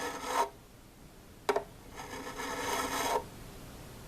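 Fret crowning file scraping across a mandolin's metal frets, recrowning frets left flat on top by leveling: a short stroke at the start, a sharp tap about a second and a half in, then one longer stroke of about a second.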